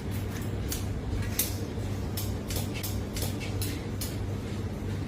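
Barber's scissors snipping: about a dozen short metallic clicks at an uneven pace, over a steady low hum.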